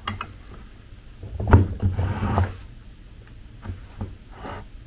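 Hand rummaging in a fabric tool-bucket organizer: fabric rustling and a few knocks, the loudest about a second and a half in.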